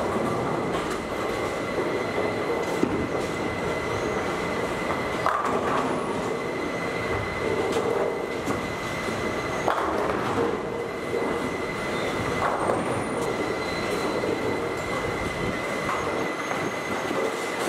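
Bowling alley din: balls rolling down the wooden lanes with a continuous rumble, and pins crashing a few times across the lanes. A steady high-pitched tone runs through it.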